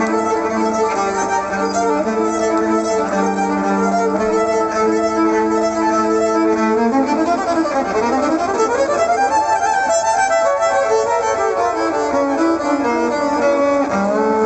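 Live amplified band music led by a violin playing a melody of held notes; about halfway through it breaks into quick runs up and then down the scale before settling on held notes again.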